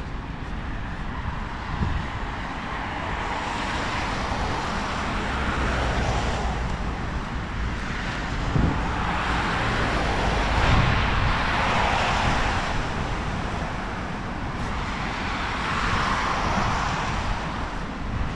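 Road traffic: vehicles passing one after another, each swelling up and fading away over a few seconds, over a steady low rumble.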